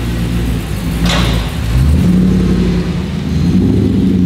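Engine of an engine-swapped Kahn Land Rover Defender 110 running and revving, its low note rising and settling, with a brief whoosh about a second in.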